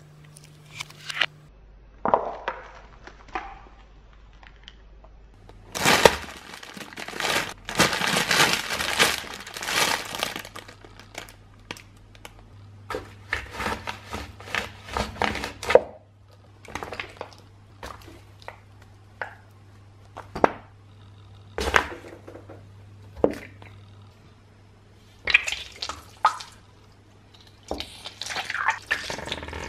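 A stiletto heel crushing things on a tile floor: toothpaste tubes squished, then a pile of cotton swabs ground under the shoe in long runs of crackling and snapping, and a bead-filled mesh stress ball squashed near the end. The sound comes in separate short crunches and crackles, with one long dense stretch of crackling a quarter of the way in.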